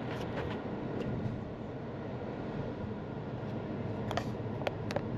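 Steady road and tyre noise inside the cabin of a SsangYong Torres T7 4WD driving along a road. A few light clicks come near the end.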